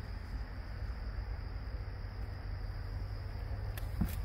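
Steady high-pitched insect drone, like crickets, over a low rumble, with one short knock near the end.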